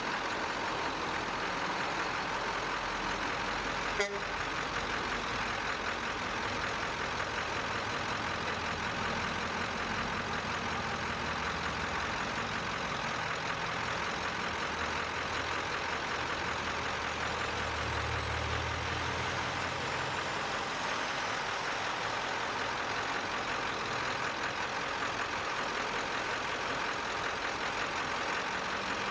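Heavy trucks' engines running steadily as tow trucks pass in a slow procession. A louder low engine rumble builds and fades about 17 to 21 seconds in, with a faint high whine rising and falling over it. There is a single short knock about four seconds in.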